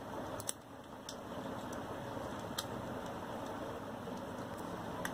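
A few sharp plastic clicks as an action camera's clear waterproof casing is handled and opened, over steady background noise.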